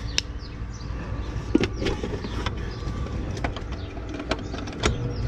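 Steady low motor hum with scattered clicks and taps of handling. Near the end an AC condenser fan motor starts up.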